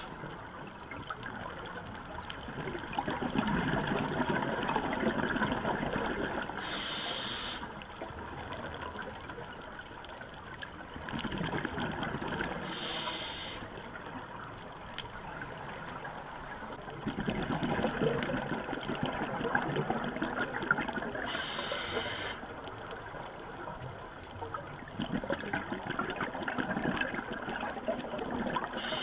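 Scuba diver breathing through a regulator: each breath is a short hiss of inhaling, followed by a long burble of exhaled bubbles. About four slow breaths, with hisses about seven, thirteen and twenty-two seconds in and again at the very end.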